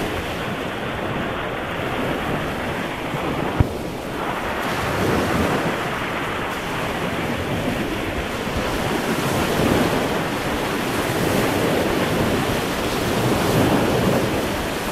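Sea surf washing onto a beach, swelling and easing every few seconds, with wind buffeting the microphone. A single sharp click about three and a half seconds in.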